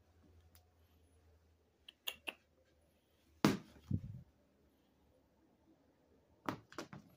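A few sharp knocks and a dull thump in a quiet room: a pair of light clicks, a louder knock followed by a low thud about halfway through, and two more knocks near the end, from a cat's toy ball and hands handling things over a wooden floor.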